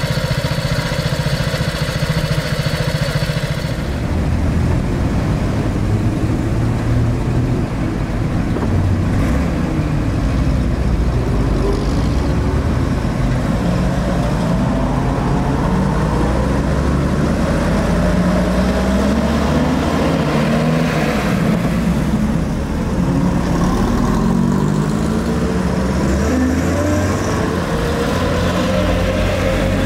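Engines of vintage WW2 military vehicles running in a moving convoy. A steady engine note for the first few seconds gives way to several overlapping engine notes rising and falling as vehicles speed up and slow down.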